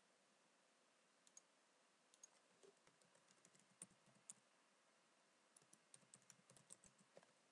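Faint computer keyboard typing: scattered keystroke clicks in two short runs, the second starting about five and a half seconds in.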